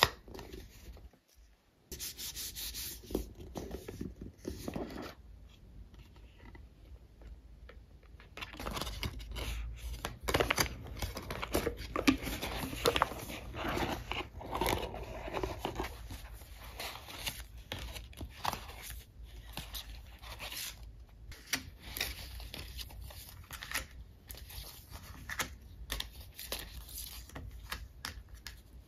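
Paper and cardboard being handled: a card box opened, a stack of Christmas cards and paper envelopes slid out, and cards set down on a cloth, with rustling, rubbing and light taps. The handling is busiest in the middle.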